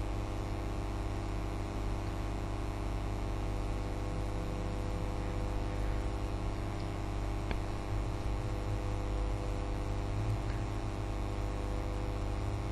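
Steady electrical mains hum with a light static hiss.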